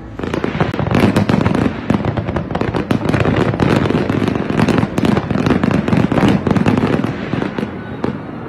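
Fireworks display: a dense run of bangs and crackling from aerial shells bursting, beginning abruptly and easing off near the end.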